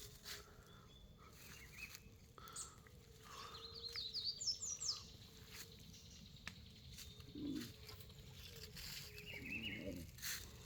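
Faint bird chirps: a quick run of short, high, sliding notes about four to five seconds in and a few weaker chirps near the end, over a quiet background with scattered soft clicks.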